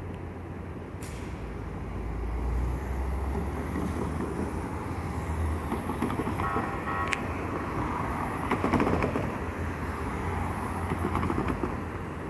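Downtown street traffic: vehicles rumble past, with a brief high-pitched squeal about six and a half seconds in and a swell of passing-vehicle noise near the nine-second mark.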